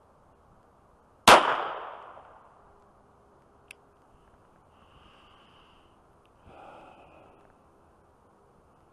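A single .22 LR pistol shot from a Glock 44, loud and sharp, with a tail that dies away over about a second. A small sharp click follows about two seconds later, and a much softer thud a few seconds after that.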